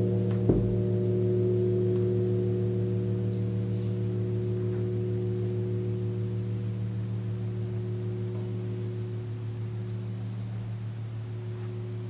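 A 36-inch gong ringing with a steady chord of low tones that slowly dies away. A single brief knock comes about half a second in.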